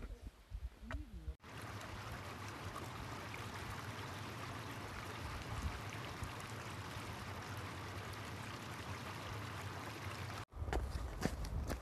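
Small rocky mountain stream running, a steady rush and babble of water that starts suddenly a little over a second in and cuts off near the end. After it, wind buffets the microphone with a low rumble.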